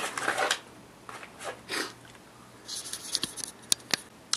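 Someone rummaging through a pile of clutter for a small tool: scattered rustling, then a few sharp light clicks of small hard objects near the end.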